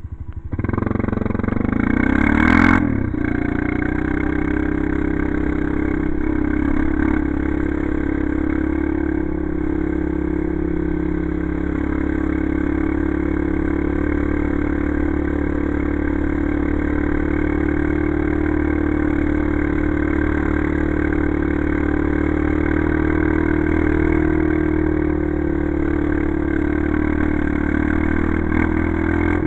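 ATV engine running steadily at an even pitch, with a short louder burst about two and a half seconds in.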